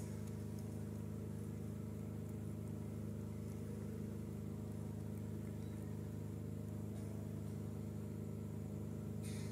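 A steady low hum that does not change, like a motor running, with a brief faint rustle near the end.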